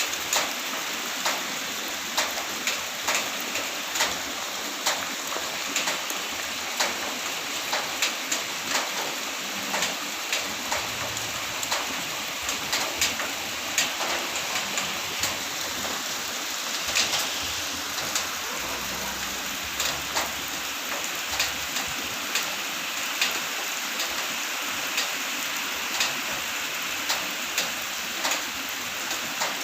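Steady rain falling, heavy drops hitting a nearby surface in frequent irregular sharp taps over an even hiss.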